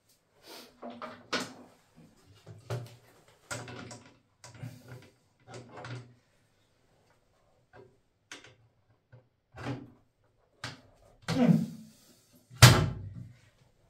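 Knocks and clatter of hard objects being picked up and handled, in a series of separate short knocks, ending in a loud, deep thump near the end.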